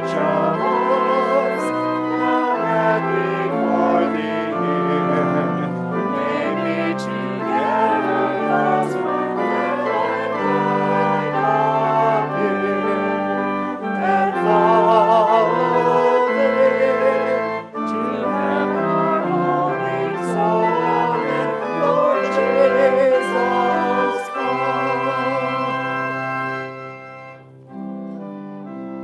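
Church organ playing instrumental music: held chords and a wavering melody line. The music breaks off briefly about two-thirds of the way through, then goes on more quietly after a short pause near the end.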